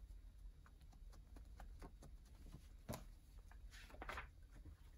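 Near silence: quiet room tone with a few faint ticks, a soft click about three seconds in, and a brief rustle as a paper picture book is handled about four seconds in.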